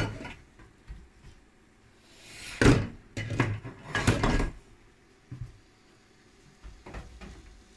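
Knocks and rattles against a glass window fitted with burglar bars: one loud knock about two and a half seconds in, a cluster of knocks a second later, and a faint one near the end.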